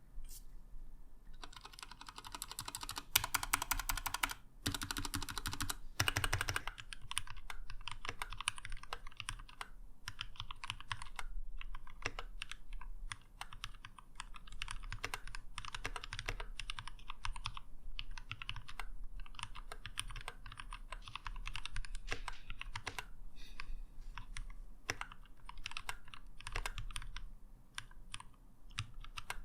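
Keychron K6 mechanical keyboard being typed on: a continuous stream of keystroke clacks, with two denser, louder stretches in the first seven seconds.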